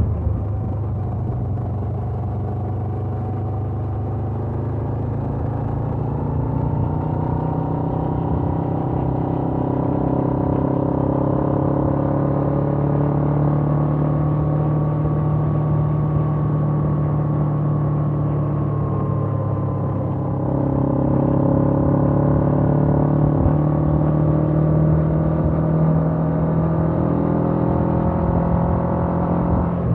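Suzuki GS500F's air-cooled parallel-twin engine with its stock exhaust, pulling on the road under steady throttle. Its pitch climbs slowly, and it gets louder a little over two-thirds of the way through.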